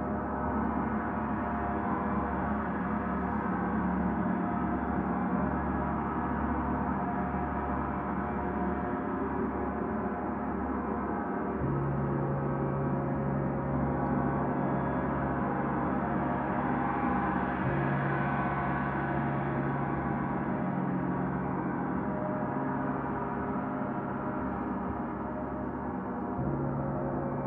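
Several gongs ringing together in a continuous dense wash of overlapping tones, with no separate strikes standing out. The low drone underneath shifts pitch about a third of the way in and again near the end.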